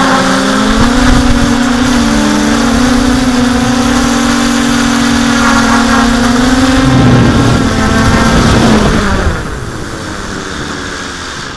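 Multirotor hexacopter's electric motors and propellers buzzing steadily under a hiss of rushing air. About seven seconds in, the pitch drops as the craft comes down onto the grass, and near nine seconds the motors spin down and the sound falls away.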